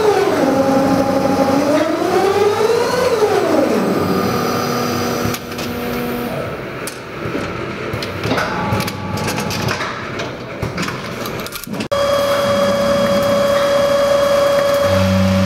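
Automatic yarn ball winding machine running. A motor whine drops, rises and falls again in pitch over the first few seconds, followed by quieter mechanical clicking and clatter. After an abrupt change about twelve seconds in, a steady tone sounds, joined near the end by the low hum of the vibratory bowl feeder that supplies the winding tubes.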